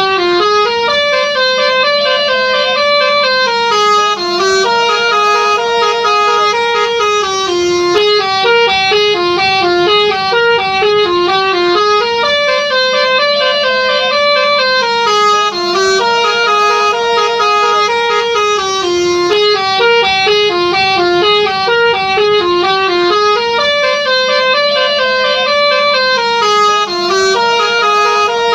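Indonesian 'telolet' bus horn playing a looping melody of stepped musical notes, the same tune repeating about every twelve seconds.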